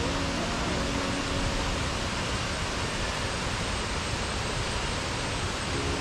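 Steady, even rushing of falling water from a waterfall, with no change in level.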